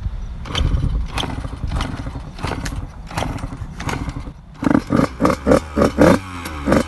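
Small dirt bike being kick-started: a run of knocking strokes about every half second, then the engine catches about four and a half seconds in and is blipped in quick revs.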